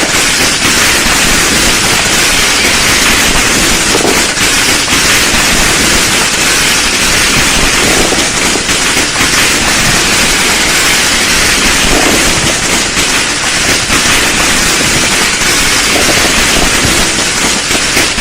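Firecrackers going off in a dense, unbroken crackle of rapid pops, like a long firecracker string.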